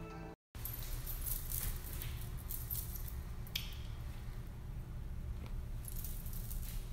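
Handling noise on a phone's microphone: rustling and a few sharp clicks over a low steady rumble, after a brief cut to silence just after the start.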